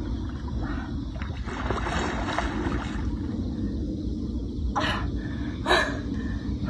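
Steady wind rumble on the microphone, with a hooked fish splashing twice at the pond surface near the end, about a second apart.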